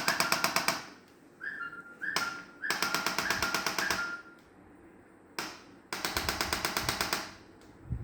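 Chiropractic adjusting gun firing rapid runs of thrusts into the spine, about ten taps a second, in bursts of one to one and a half seconds with short pauses between.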